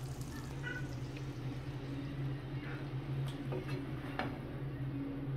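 A few soft clicks of a serving spoon against a glass plate as keema is served, over a faint low steady hum.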